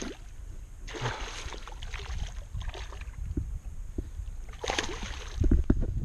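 Hooked largemouth bass thrashing and splashing at the water's surface beside a kayak, in two splashy bursts, about a second in and again near the end. Dull low knocks follow near the end.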